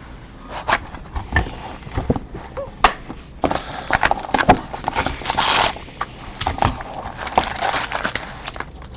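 Trading card box and foil card packs being handled by hand: scattered taps and knocks of cardboard, then spells of crinkling plastic and foil wrappers.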